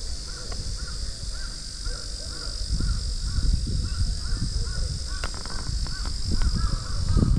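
A bird calling a short, arched note over and over, about twice a second, over a steady high hiss and low rumble.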